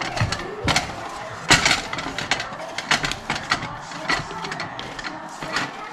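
A spoon scraping leftover ube halaya off a metal frying pan: a run of irregular scrapes and knocks against the pan, the loudest about a second and a half in.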